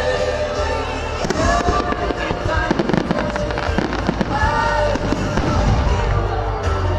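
Fireworks bursting and crackling in quick succession over loud music. The bangs come thick from about a second in until just before the end.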